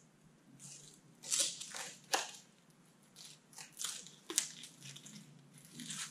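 Protective PVC plastic film being peeled off a steel shelf divider by hand: irregular crinkling and crackling of the plastic, with the sharpest crackles about a second in and again past the middle.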